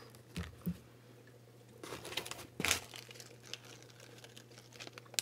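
Packaging crinkling and rustling as a small packet is handled among paper packing, with two soft knocks in the first second and a louder crinkle about two and a half seconds in.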